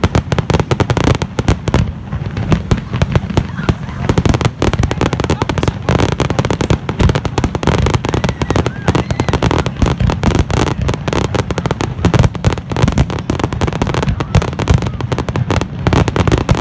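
Fireworks display: a dense barrage of aerial shell bursts, with many bangs in quick succession and no let-up.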